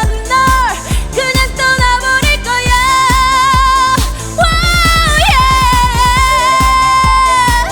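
A woman singing live over a dance-pop backing track with a steady kick drum. A fast drum roll about halfway through leads into one long high sung note with vibrato, held almost to the end.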